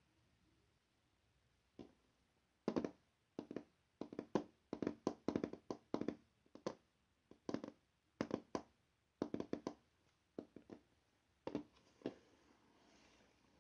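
Slime being squeezed and pressed by hand, giving short bursts of crackling, popping clicks about once or twice a second, softening near the end.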